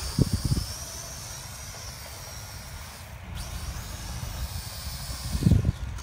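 Small X3 Pioneer quadcopter's propellers whining high and steady overhead, the pitch wavering as it flies. The whine cuts out briefly about three seconds in, then comes back rising in pitch, with wind rumbling on the microphone.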